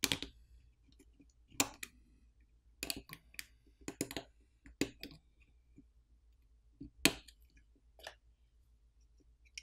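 Irregular small clicks as a plastic pry pick pops the camera flex-cable connectors off a smartphone main board.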